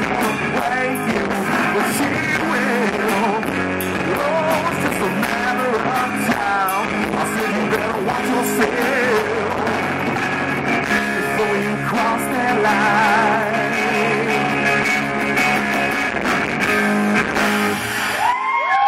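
Live rock band (electric guitar, bass and drum kit) playing loudly through an instrumental stretch of a rock song, with a wavering lead line over the beat. The band stops abruptly near the end.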